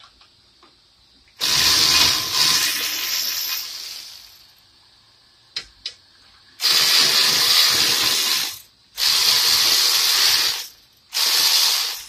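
3/8-inch drive power ratchet with a deep 15 mm socket running in four spells, spinning out the 15 mm bolts of a brake caliper bracket; the first spell trails off and the last is short.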